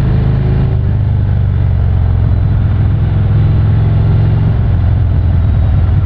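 A Harley-Davidson touring motorcycle's V-twin engine runs steadily while the bike rides slowly in traffic.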